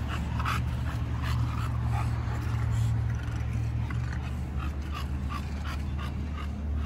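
Bully-breed dogs whining and yipping in many short calls, over a steady low hum.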